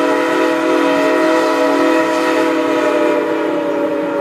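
Narrow-gauge steam locomotive's whistle blowing one long, steady multi-note chord.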